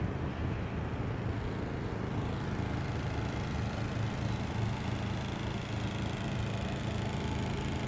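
Honda portable generator running with a steady, even engine hum, under load from a window air conditioner.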